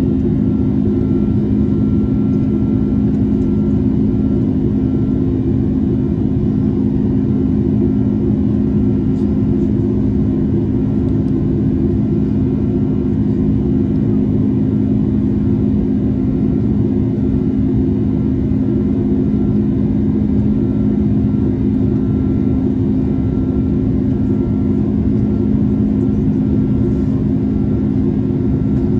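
Steady drone of an Airbus A330's Rolls-Royce Trent 700 turbofan engines in flight, heard inside the cabin beside the wing, with a strong low hum and a faint higher steady tone above it.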